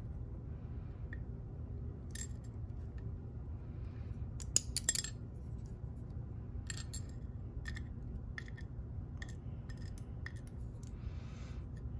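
Scattered small metallic clicks and clinks as the parts of an ASSA Twin lock cylinder are handled during disassembly, with a cluster of sharper clicks about halfway through. A steady low hum runs underneath.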